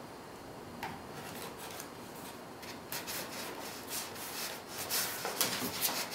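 Foam wing extension of a model glider rubbing and scraping as it is handled and worked onto carbon wing spars. It is faint at first, then a run of short scrapes over the last three seconds.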